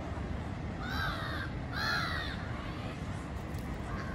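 Two loud bird calls about a second apart, each an arching, caw-like call of about half a second, with a fainter call near the end, over a steady low rumble.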